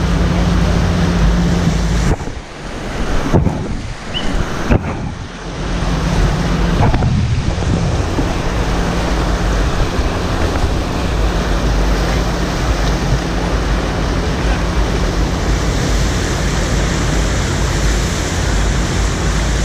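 Loud rushing, churning water of an artificial standing surf wave, with wind buffeting the microphone. The sound muffles briefly twice a few seconds in, then runs steady again.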